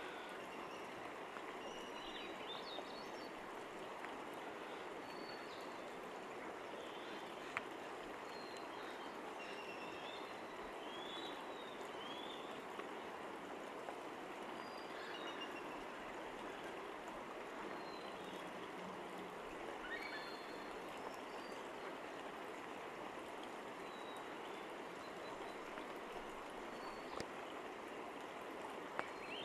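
Steady rush of flowing creek water, with scattered short bird calls over it.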